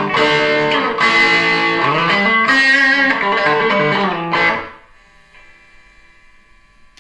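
Electric guitar played through an amplifier with some distortion, with shifting picked and strummed notes that stop about four and a half seconds in. A faint, steady amplifier hum and buzz is left behind.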